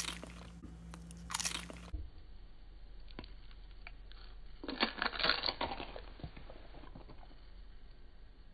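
Crunching of a chip being bitten and chewed right at the mouth, in short crackling bursts. The loudest cluster comes about five seconds in, and the sound turns duller after about two seconds.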